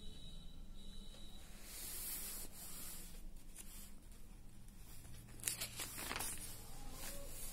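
Paper pages of a printed booklet being handled and turned by hand: a soft rustle about two seconds in, then sharper crinkles as the page flips over from about five and a half seconds.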